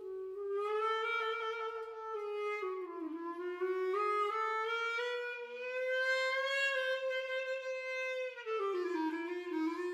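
Solo clarinet playing one unbroken line that slides in pitch: it dips about three seconds in, climbs and holds, then dips again near the end.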